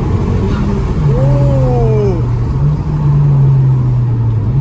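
Honda Civic Type R FK8's turbocharged 2.0-litre four-cylinder running with a PRL high-flow intake fitted, its pitch dropping about a second in and then holding steady. A whistle rises and falls about a second in.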